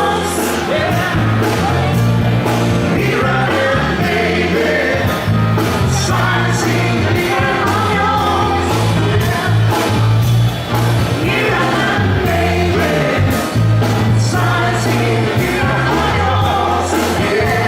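Music with a singer over a steady beat and a prominent bass line.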